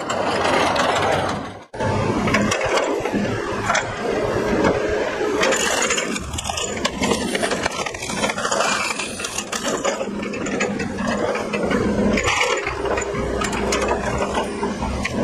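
Excavator engine running steadily while its hydraulic splitting attachment is driven into logs, with scattered wooden cracks and scrapes. Before a brief dip near the start, a flywheel log splitter runs.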